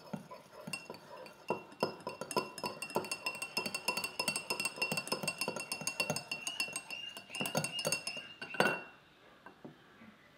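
Small metal wire whisk beating melted wax and oil in a ceramic bowl, its wires clinking rapidly against the bowl with a faint ringing. A louder knock comes near the end as the whisking stops.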